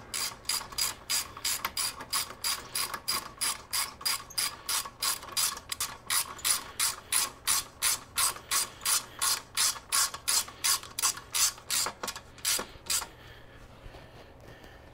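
Hand ratchet wrench clicking in a steady rhythm, about three clicks a second, as the brake strut bolt on a 1970 Honda CL350's front drum brake is run in and tightened. The clicking stops near the end.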